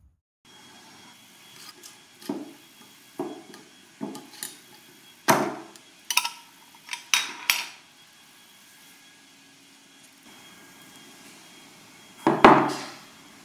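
Short knocks and clinks of a glass mason jar and its metal screw lid being handled on a wooden table, about eight sharp taps and clunks over several seconds. One louder knock follows near the end.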